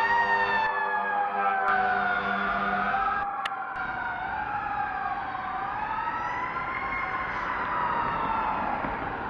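Fire engine's siren wailing, its pitch slowly rising and falling, with a steady low hum under it that stops about three seconds in.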